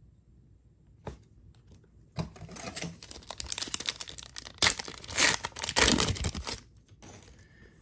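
Foil MetaZoo UFO booster pack being torn open across its top seal and crinkled in the hands. A single click about a second in, then about four seconds of crinkling and tearing, loudest in the second half.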